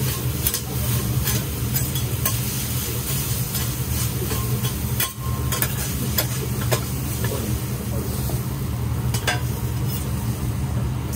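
Yakisoba noodles sizzling on a hot steel teppan griddle while two metal spatulas scrape, toss and chop them, clacking sharply against the plate at irregular moments, over a steady low hum.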